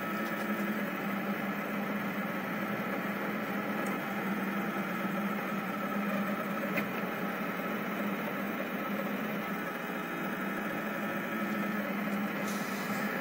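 Rostock delta 3D printer running mid-print, a steady mechanical hum from its motors and fans as the hot end lays down a thin wall.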